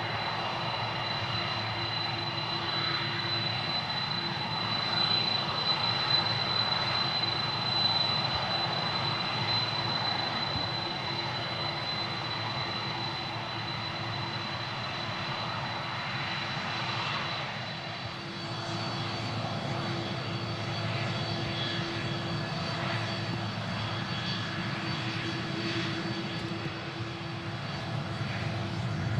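Boeing VC-25A's four General Electric CF6-80C2 turbofans running at taxi power: a steady jet whine with a high tone over a low rumble. The pitch of the whine shifts about 18 seconds in.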